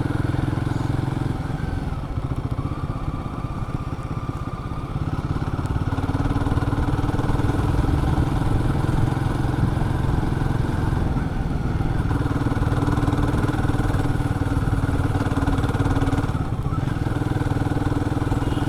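Royal Enfield Guerrilla 450's single-cylinder engine running steadily under way. It eases off a couple of seconds in and picks up again about six seconds in.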